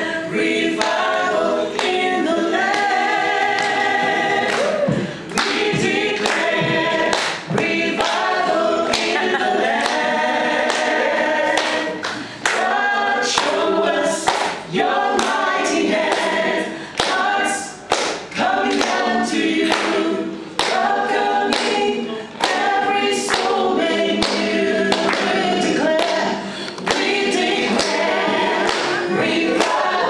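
A small group of women singing a worship song together into microphones, unaccompanied, in phrases with brief breaks between them.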